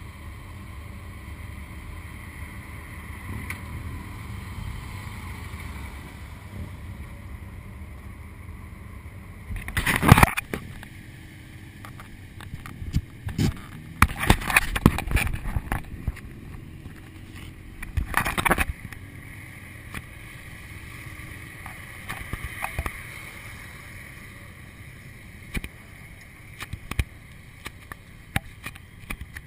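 Motorcycle engines running at low revs with wind on the microphone, a steady low rumble. Several loud rushing bursts of noise break in about ten seconds in and again over the following eight seconds, with a few short knocks near the end.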